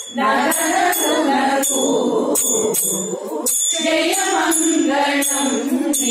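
A devotional song sung by women, with a bright metallic jingle struck on the beat about twice a second.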